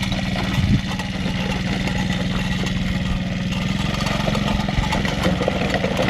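110cc mini quad's small single-cylinder four-stroke engine running steadily at low, even revs, with a brief knock a little under a second in.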